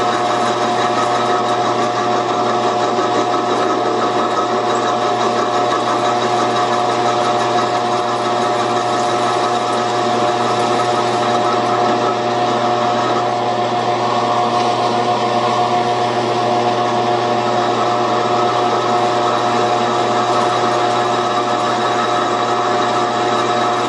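Metal lathe running under load while a carbide cutter on a hand-fed cone-cutting attachment cuts aluminum round stock: a steady mechanical hum with several steady tones over the hiss of the cut.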